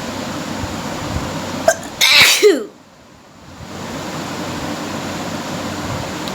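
A woman sneezes once about two seconds in: a short intake, then a loud sneeze that falls in pitch, over a steady background hiss.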